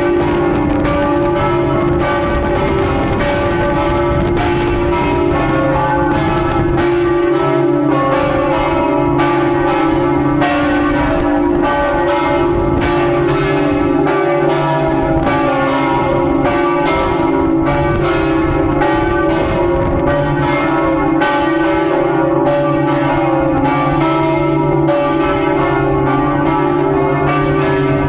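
Church bells of the St Mark's Square bell tower ringing together, struck in a steady stream of about one or two strokes a second, with several bells of different pitch sounding over one another and each stroke ringing on.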